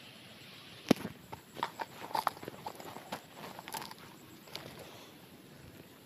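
Footsteps crunching on dry grass and twigs: a sharp snap about a second in, then a scatter of crackles for about three seconds.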